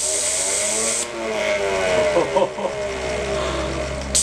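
Compressed air hissing through a radio-controlled electrovalve into a 3D-printed Tesla turbine, the turbine whining up and down in pitch as the throttle is worked. The air hiss cuts off about a second in and starts again at the very end.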